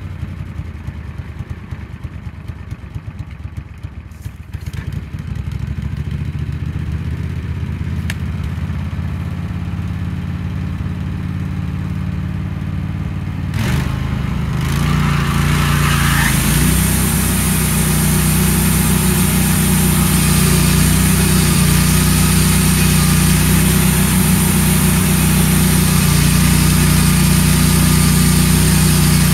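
Wood-Mizer LT15 portable band sawmill: its engine idles, then about halfway through revs up as the band blade is engaged, and runs steadily under load with a broad hiss as the blade cuts through an ash log.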